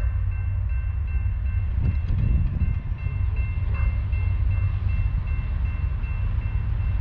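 Railroad grade-crossing bell ringing, a high pulsing chime repeating two to three times a second, over a steady low rumble from the railroad.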